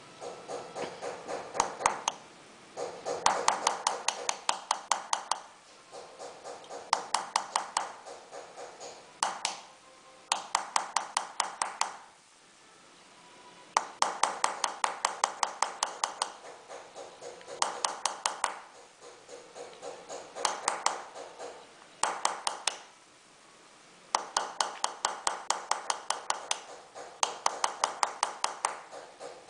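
Small hammer tapping a steel chasing tool that traces an engraved design into a silver sheet: quick, even metallic taps with a light ring, about seven a second, in runs of a second or two with short pauses between.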